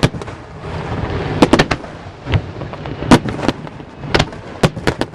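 Aerial fireworks bursting in a string of sharp bangs, about ten in all, with three in quick succession about a second and a half in.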